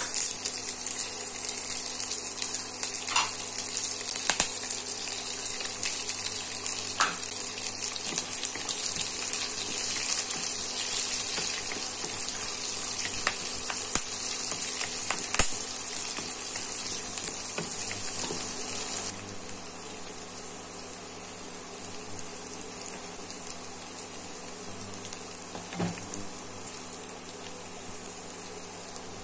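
Shallots, garlic, curry leaves and dried red chillies sizzling in hot oil in a frying pan, a steady hiss that drops noticeably about two-thirds of the way through. Occasional clicks and scrapes of a wooden spatula stirring in the pan.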